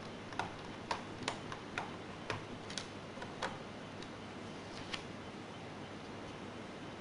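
Irregular series of about a dozen small, sharp clicks from laptop parts being handled and worked apart, stopping about five seconds in.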